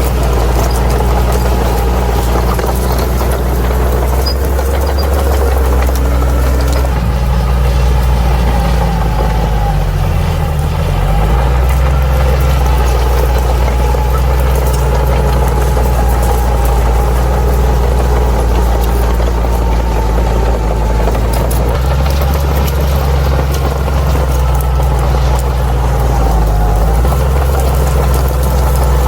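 Bulldozer's diesel engine running steadily, its low note briefly dipping about ten seconds in, with fainter wavering higher tones from the machine above it.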